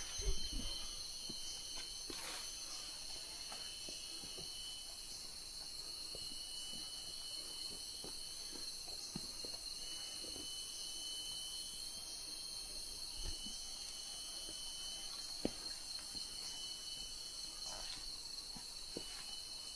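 Rainforest insect chorus: a steady, high-pitched drone of several overlapping insect calls at different pitches, with scattered faint knocks.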